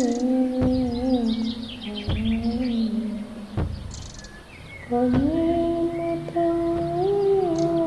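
A woman's voice singing long, slowly wavering notes over the dull thud of a pestle pounding in a mortar about every second and a half, with birds chirping.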